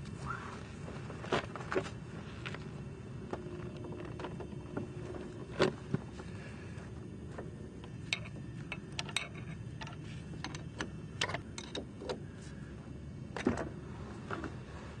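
Wrench working the brake-line banjo bolt on a disc brake caliper: irregular sharp metallic clicks and clinks, the loudest about five and a half seconds in and again near the end, over a steady low hum.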